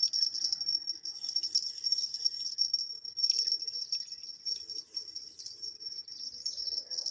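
Insects chirping in a steady, high-pitched pulsing chorus, like crickets in grass.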